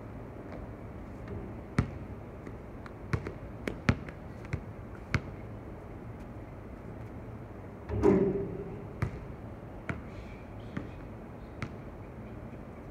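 A basketball bouncing on a hard outdoor court: single sharp bounces at irregular intervals, a few in quick pairs, during one-on-one play. A louder, longer burst about eight seconds in stands out above the bounces.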